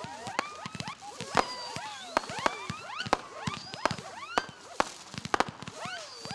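Fireworks going off: a dense run of sharp pops and cracks mixed with many short overlapping whistles that rise and fall in pitch.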